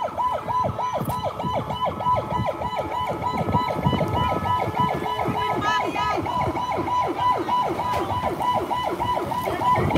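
Police car siren sounding in a fast repeating yelp, each sweep dropping in pitch, about four to five sweeps a second.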